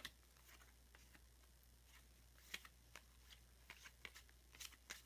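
Faint, scattered flicks and clicks of cardboard trading cards being slid and shuffled through by hand, over a low steady hum.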